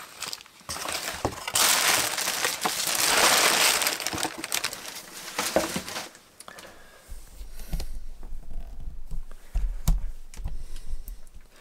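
Tissue paper and a cardboard box crinkling and rustling as packaging is handled, loudest for a couple of seconds early on, with small clicks and knocks. Low thumps of handling noise follow near the end.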